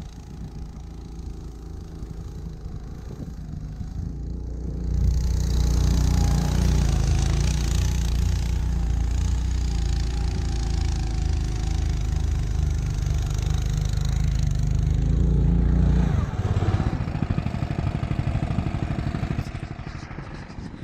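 Husky mini snowmobile's engine running: a lower, steady run for the first few seconds, then it revs up about five seconds in and runs hard for about ten seconds, dropping back to a lower, throbbing run about sixteen seconds in.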